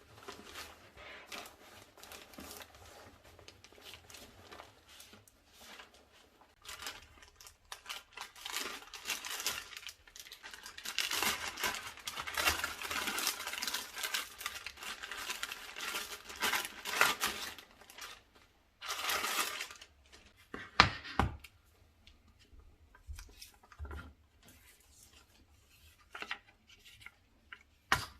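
Packaging being handled and unwrapped: irregular rustling, crinkling and tearing, densest through the middle. Followed by a few sharp knocks near the end.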